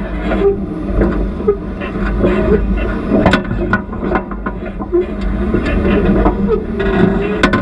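Off-road vehicle crawling over a rocky trail: a steady low engine note with frequent knocks and clatter of tyres and suspension on rock, and two sharp cracks, one about three seconds in and one near the end.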